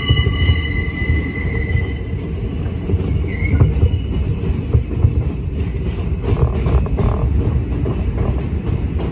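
R142 subway car running along the track: a steady loud rumble of wheels on rail, with a high electric whine in the first couple of seconds. Later comes a burst of clattering clicks from the wheels, about six to seven seconds in.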